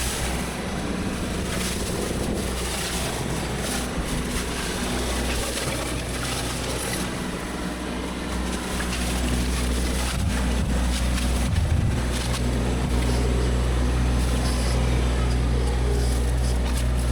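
Heavy machinery's engine running steadily with a low hum, growing a little louder about ten seconds in.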